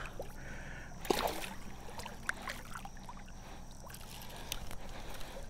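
Water sloshing and splashing around a wading angler landing a smallmouth bass by hand, with a short sharp sound about a second in.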